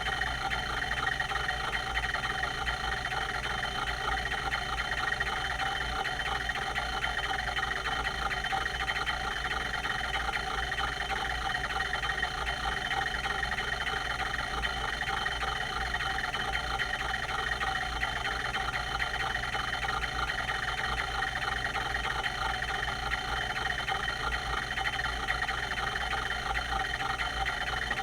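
Quantum Q540 30 MB full-height 5.25-inch hard drive running: a steady whir with a dense, rapid fine ticking.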